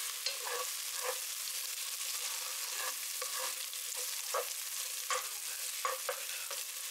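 Food sizzling steadily in a hot pan while it is stirred, with irregular short scrapes and clicks of the utensil against the pan.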